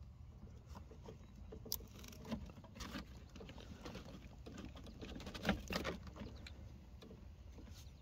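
Faint rustling and scattered light clicks of a car-door wiring harness, plastic crimp connectors and a crimping tool being handled. The loudest clicks come about five and a half seconds in.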